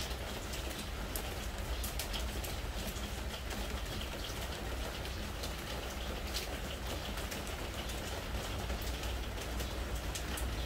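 Spring rain falling steadily on a pressure-treated wooden deck: an even hiss with many separate drop hits ticking through it, over a low steady rumble.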